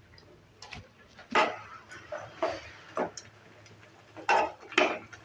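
A spatula scraping and tapping against a kadai while stirring pineapple pieces as they cook down, in about five separate strokes.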